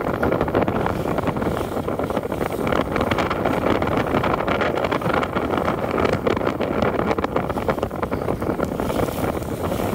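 Cruise-ship tender boat under way, its engine running steadily beneath heavy wind buffeting on the microphone.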